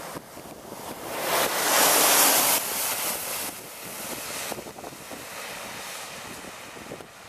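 A heavy goods vehicle ploughing through floodwater: a rush of spraying, churning water swells about a second in, is loudest around two seconds, then eases off to a lower steady wash.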